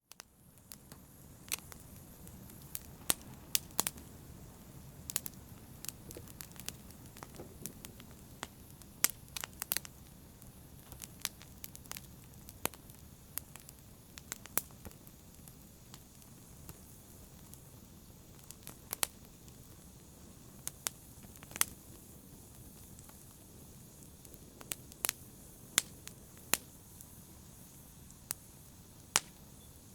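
Wood fire burning in a fireplace: a low steady rumble of flames with sharp, irregular crackles and pops of burning logs.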